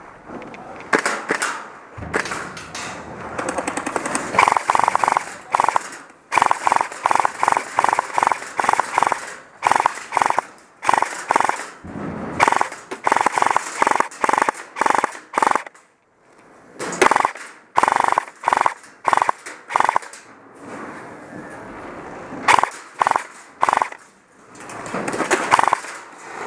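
Airsoft guns firing in repeated bursts of rapid sharp cracks, with short pauses between bursts and two brief lulls, about two-thirds of the way through and near the end.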